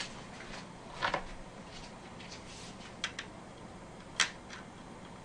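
Small sharp clicks and taps of a Kraken X62 CPU cooler back plate's pins being fitted and pushed into the motherboard's mounting holes: a double click about a second in, two close clicks near three seconds, and the sharpest one near four seconds.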